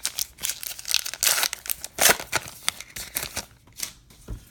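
Plastic wrapper of a 2019 Topps Allen & Ginter baseball card pack being torn open and crinkled by hand, a dense run of crackly tearing and rustling that thins out after about three and a half seconds as the cards come out.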